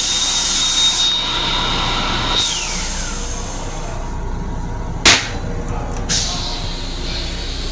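A restroom fixture's electric motor in an M7 railcar whines at a steady high pitch for a few seconds, then winds down with a falling pitch, over a hiss. A sharp clunk comes about five seconds in and a softer one a second later, over the steady low rumble of the moving train.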